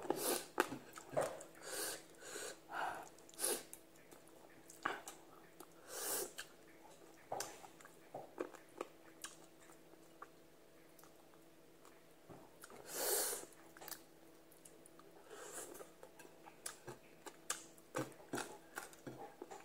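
Close-up mouth sounds of eating by hand: chewing of fried tilapia and rice with sautéed mustard greens, coming in short irregular bursts. One louder breath sound comes about two-thirds of the way through.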